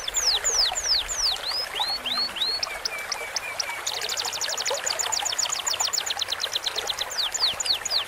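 Birdsong tutor recording combining canary, cucak cungkok and lovebird song over the steady sound of trickling stream water. A run of high descending whistled sweeps, about three a second, gives way about four seconds in to a fast ticking trill of repeated high notes, which turns back into sweeps near the end.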